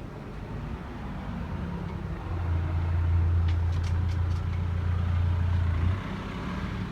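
A low, steady mechanical hum from an engine or motor that starts abruptly about two seconds in and cuts off about four seconds later, over a steady street background.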